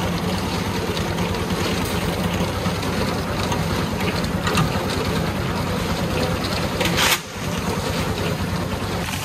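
A drum concrete mixer running steadily, its motor pulsing evenly as the drum churns a batch. There is one short, loud, noisy burst about seven seconds in.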